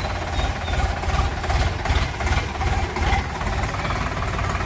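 Heavy diesel engine running steadily close by, with a fast low throb.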